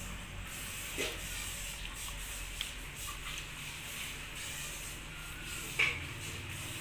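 Plastic tubs and a spoon handled while grated papaya pickle is scooped and portioned: a few soft clicks and knocks of plastic, the loudest near the end, over a steady low background hum.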